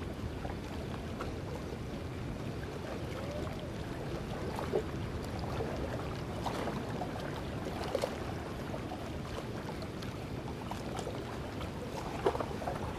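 Steady harbour ambience: a low, even rumble of water and air, with a few faint clicks and knocks, the sharpest about twelve seconds in.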